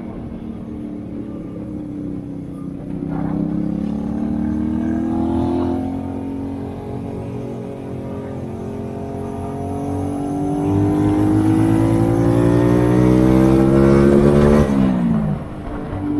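Honda Shadow 125's small V-twin engine heard from the rider's seat, pulling up through the revs, dropping about six seconds in as a gear is changed, then climbing in revs for a long stretch. The revs fall away sharply near the end.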